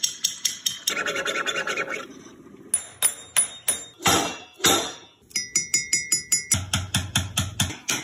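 A small parrot pecking and tapping its beak against household things in quick runs of sharp taps, several a second. Partway through, the taps ring like struck metal (a pot); near the end they turn into duller knocks.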